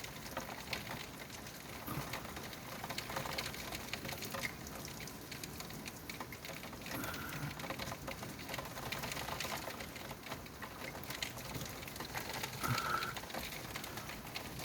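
Thunderstorm rain falling steadily, an even patter made of many fine drop ticks.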